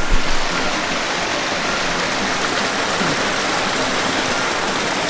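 Steady rush of creek water running over rocks in a gorge.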